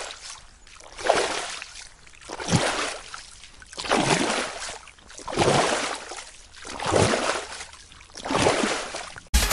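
Swimming strokes splashing and sloshing through water in a steady rhythm, about one stroke every second and a half.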